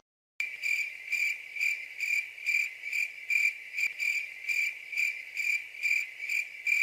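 Cricket chirping sound effect, a high chirp repeating about twice a second, cutting in sharply just after the start and stopping abruptly at the end: the comedy 'awkward silence' gag.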